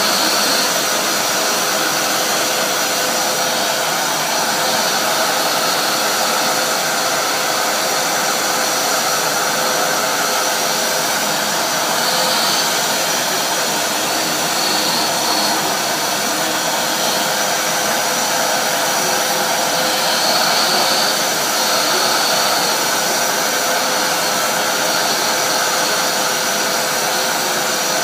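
Vacuum cleaner running steadily while its floor nozzle is drawn over a cat's fur: a loud rush of air with a steady high whine on top.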